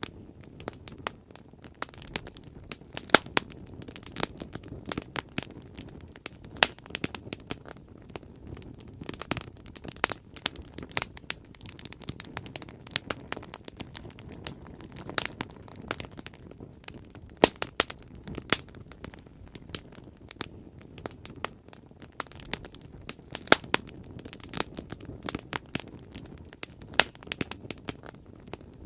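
Wood fire crackling: a steady low rumble of burning with many irregular sharp pops and snaps throughout.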